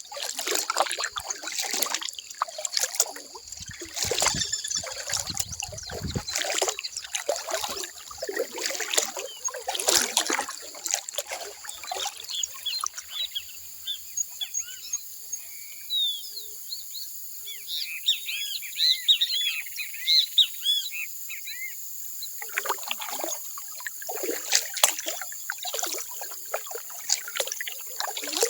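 Water trickling and splashing from a kayak paddle dipping and dripping, in an uneven stream of small splashes. About halfway through the splashing stops for several seconds, and birds sing with many quick chirps, before the paddle splashes start again.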